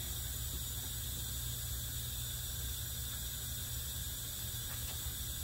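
Steady low hum with a faint even hiss, shop room tone with no distinct handling sounds.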